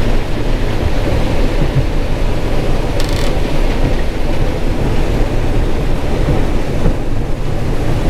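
John Deere 9400 Maximizer combine running steadily while shelling corn, a loud, even rumble. About three seconds in there is a brief higher rattle, as the unloading auger starts pouring shelled corn into the grain cart.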